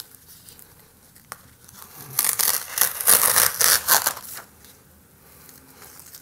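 Tape being peeled off the edges of a painted paper study: a run of quick ripping and crackling strips from about two seconds in, lasting a little over two seconds, with quieter rustling of the tape before and after.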